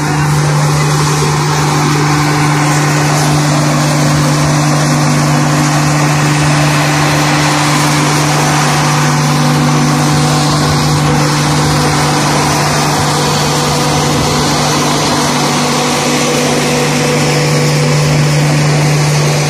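Diesel generator set in a train's luggage-and-generator power car, running at constant speed: a steady hum at one fixed low pitch with an even hiss over it.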